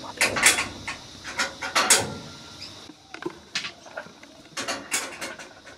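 Leaves rustling and brushing close by, in a string of irregular scrapes.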